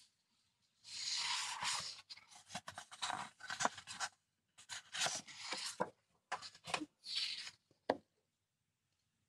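Large sheets of Maja Design scrapbook paper being slid, lifted and turned over by hand: rustling and sliding in several bursts, with a sharp tap near the end.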